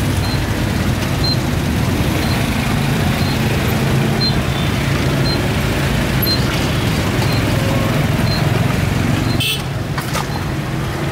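Steady low motor-like rumble with a hiss over it, and a faint short high beep repeating about once a second. The rumble dips briefly near the end.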